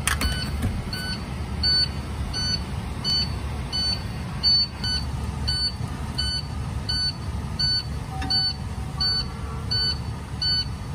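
Fire engine's engine running with a steady low rumble, heard from inside the cab, under an electronic warning beep that repeats evenly a little under twice a second.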